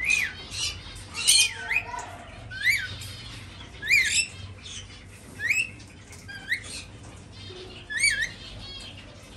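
Lorikeets giving short, shrill squawks that rise and fall in pitch, repeated about every one to one and a half seconds, with fainter chirps in between.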